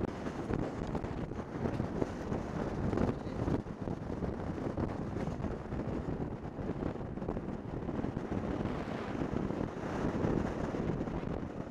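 Wind buffeting the camera microphone while riding on an open moving vehicle, a steady rush and rumble of air and road noise with no clear engine note.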